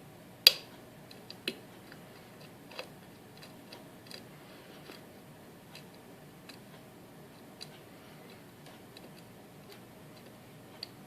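Sparse small metallic clicks of a hook pick working the pin stack of an Assa Guideline lock: a sharper click about half a second in, then a few fainter ones scattered through.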